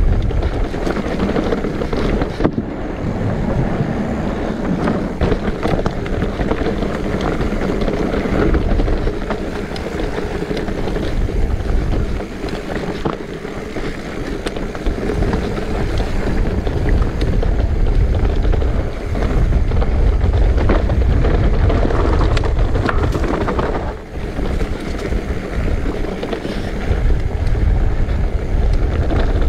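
Electric mountain bike riding down a dirt trail, heard through a GoPro's microphone: wind rushing over the microphone, tyre noise, and many short rattling knocks from the bike over bumps.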